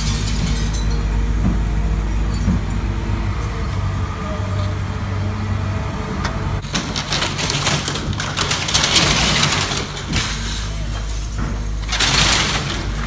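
A large vehicle's engine running with a steady low drone, with two loud bursts of hissing, one about seven seconds in and one near the end.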